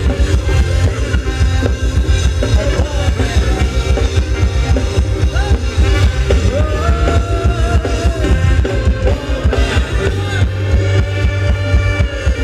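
Loud live Thai ramwong dance-band music: a heavy, steady bass beat and drum kit under a gliding melody line.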